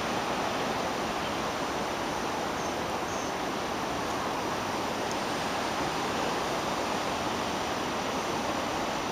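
Running water of a small stream: a steady, even rush that starts suddenly and holds unchanged.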